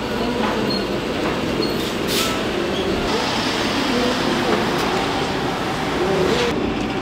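Street ambience: a steady wash of road traffic, with cars passing and indistinct voices of passers-by.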